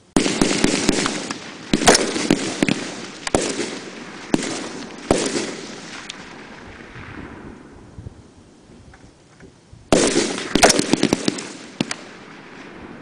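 Semi-automatic rifle fire from M16-type rifles on a firing line: irregular single shots, several rifles overlapping, each echoing. Shooting breaks out at once, thins to a lull about six seconds in, then picks up again in a fresh cluster about ten seconds in.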